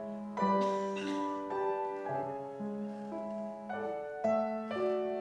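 Slow, gentle piano music, with single notes and chords struck about every half second and left ringing.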